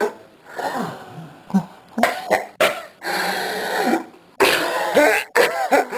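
A person in a hard coughing fit, hacking over and over with harsh throat clearing. Some coughs come short and sharp, others drag out for about a second.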